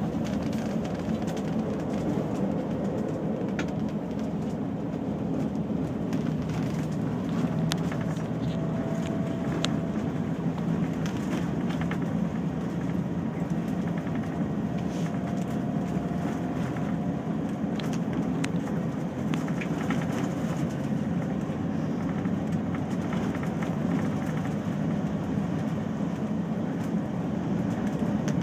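Steady drone of a coach's engine and tyres heard from inside the cabin as it drives, with occasional small rattles and clicks.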